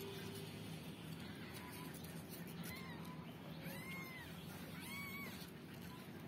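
Newborn kittens mewing: a few short, thin, high calls, each rising and falling in pitch, the longest about four seconds in.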